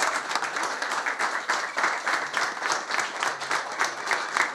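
A crowd applauding, many people clapping together at once.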